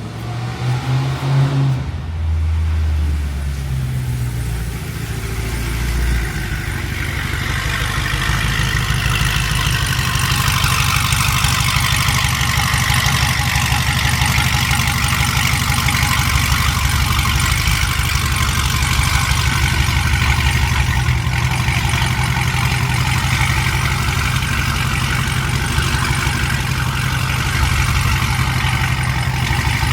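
Supercharged 6.2-litre LSA V8 of a second-generation Cadillac CTS-V, revving and changing pitch in the first few seconds, then settling into a steady idle for the rest.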